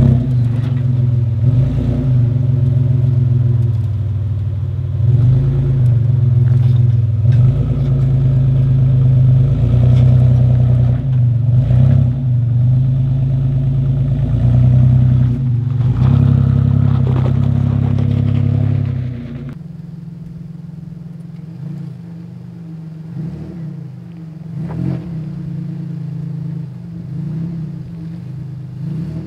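Third-generation Toyota 4Runner's engine running steadily at low revs as the truck crawls over a sandy ledge, heard up close. About two-thirds of the way through it cuts to the same engine heard quieter and farther off as the truck drives along the dirt track.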